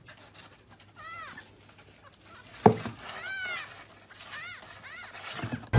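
A kitten mewing: several short, high-pitched mews that rise and fall, about one second in and again in the second half. A single sharp thump, the loudest sound, falls between them.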